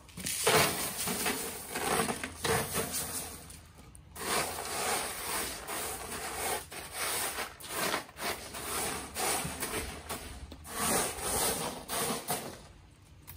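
Washed 5 mm gravel being swept level by hand across the bottom of a lined grow bed: a gritty scraping and rustling of small stones sliding over each other, in repeated strokes of about a second, with a short pause about four seconds in and dying away near the end.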